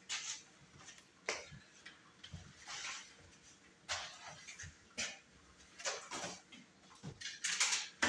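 Scattered light knocks, clicks and short rustles, with more of them near the end, as things are handled on a kitchen counter.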